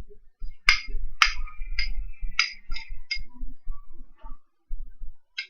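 A spoon stirring and scraping a thick egg-yolk and turmeric paste in a small bowl: irregular clinks and short scrapes, two sharper knocks about a second in.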